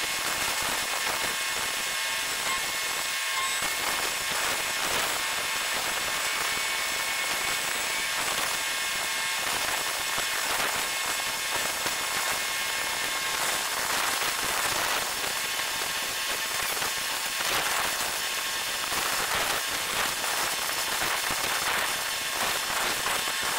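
Steady dense crackling hiss with many tiny clicks, the outdoor quayside ambience sped up in a time-lapse.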